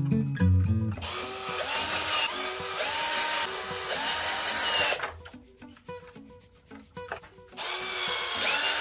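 Cordless drill-driver running in several short bursts, its motor whine rising and falling in pitch as the trigger is pressed and released, driving screws into a plastic electrical enclosure. A quieter gap falls in the middle, then a last burst near the end.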